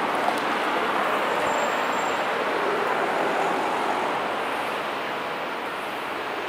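Steady street traffic noise: an even hiss of passing vehicles that eases off slowly over the last few seconds.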